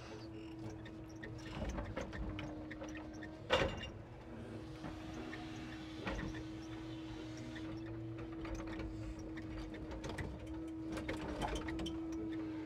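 Timber truck's loader crane at work: a steady hum from the engine driving the crane's hydraulics, with knocks and clatters of logs being handled, the loudest a single knock about three and a half seconds in.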